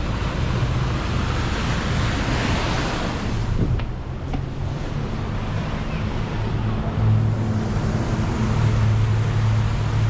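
Wind rushing over the microphone, with a steady low engine drone underneath that grows louder from about seven seconds in.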